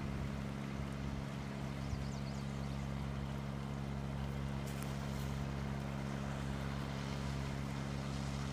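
An engine running steadily at idle, a constant low hum that holds one pitch throughout.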